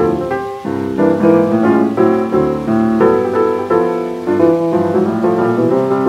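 Solo jazz piano played from a 1927 78 rpm record: a busy run of chords and single notes changing several times a second, over a faint hiss of record surface noise.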